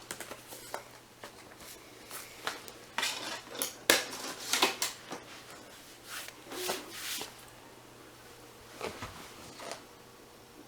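Irregular sharp plastic clicks and clatter from handling a game DVD and the all-in-one PC's optical drive tray, loudest about four seconds in and thinning out after seven seconds, over a faint steady hum.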